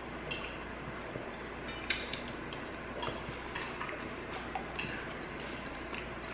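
Table sounds of a meal: scattered light clicks and clinks of a fork and dishes, the sharpest about two seconds in, over a low steady hum.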